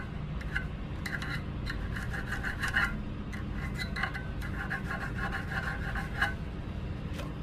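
A hand file rasping back and forth over the barb of a stainless-steel spear tip, in quick repeated strokes that stop about six seconds in. The filing smooths the barb's edges.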